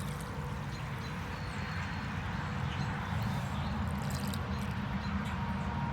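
Water running steadily into a cattle water trough as it is being filled.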